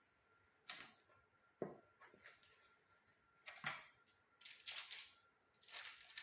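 A spatula scraping and pressing a sticky peanut butter mixture into a pan, in about six short scrapes with a soft knock about a second and a half in.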